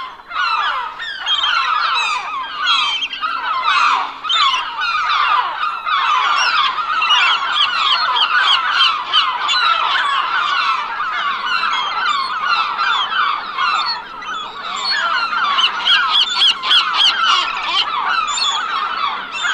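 A flock of gulls calling: many short squawks and cries overlap with no break.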